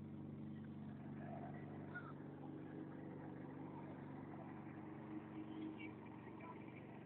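Motorboat engine running steadily at an even pitch while the boat is under way, with the rush of water from its wake.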